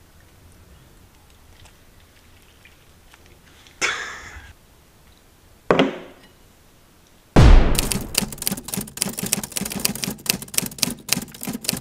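A brief hiss and a soft knock, then a sudden loud hit followed by a fast rattle of sharp clicks, about nine a second, that stops abruptly near the end.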